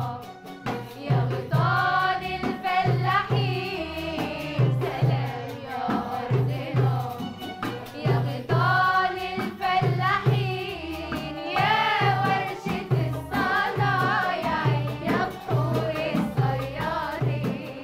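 Youth choir of girls' and boys' voices singing an Arabic song together over a steady low drum beat of about two beats a second, with instruments accompanying.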